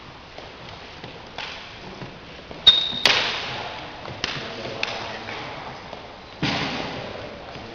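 Sharp thumps and slaps from two people training Wing Chun chi sao, echoing in a large hall. A loud one comes about three seconds in, just after a short high squeak, and another about six and a half seconds in, with lighter ones between.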